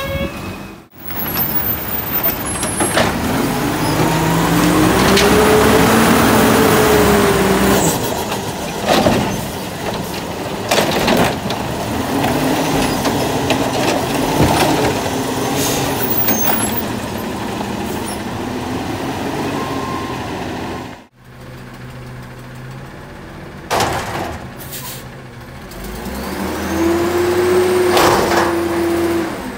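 Natural-gas garbage trucks working their lifts: the engine and hydraulics drone, rising and falling in pitch each time the arm lifts and dumps a bin. Bins knock and bang against the arms several times, and there is a hiss of air brakes.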